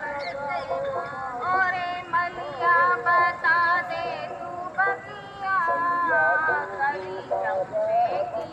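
Music with a sung melody: warbling, bending vocal lines with some held notes.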